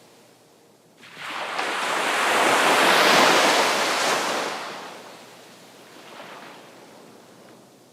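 Sea waves: after a quiet lull, a wave rushes in about a second in, swells to its loudest a couple of seconds later and washes back out, followed by a smaller, fainter wash.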